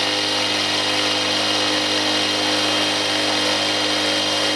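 Milling machine spindle running a two-flute carbide router bit at about 2,500 RPM, cutting a flute into a cold-drawn steel workpiece: a loud, steady whine with the hiss of the cut.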